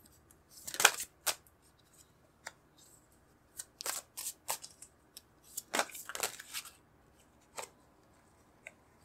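Tarot cards being handled: the deck shuffled, and cards drawn and laid down on the table, in several short clusters of card rustles and flicks, about a second in, around four seconds in, around six seconds in, and once more near the end.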